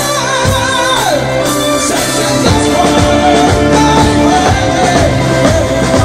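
Live rock band playing: a male lead vocal sung over electric bass, drums and keyboard, with a held, wavering sung note in the first second.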